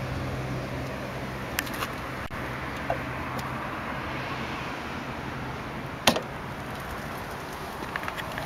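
Steady outdoor background noise with a low hum that fades about five seconds in. Over it come a few light clicks and one sharper knock about six seconds in, fitting a car's fuel filler flap being handled.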